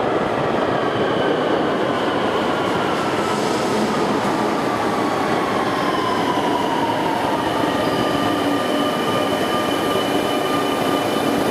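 Barcelona Metro train arriving at an underground platform and slowing: a steady rumble of wheels on rails, with a whine that falls in pitch over the first several seconds and a thin high squeal in the second half.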